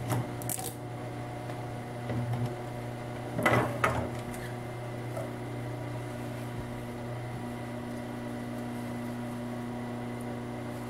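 Steady hum of the industrial sewing machine's electric table motor, running while the machine stands without stitching. Over it come a few rustles and knocks as folded denim is handled and set under the presser foot, the loudest about three and a half seconds in.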